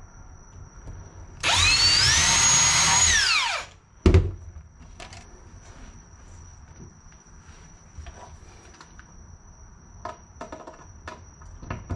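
Ridgid cordless drill pre-drilling a hole in a wooden board. The motor spins up, runs at speed for about two seconds and winds down, then comes a single sharp knock, followed later by light clicks and taps.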